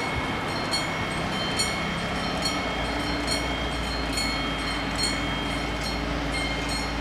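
Level crossing warning bells ringing in a steady repeating strike, a bit more than one stroke a second, each stroke leaving a sustained metallic ring. A low steady hum comes in about two and a half seconds in as the barriers come down.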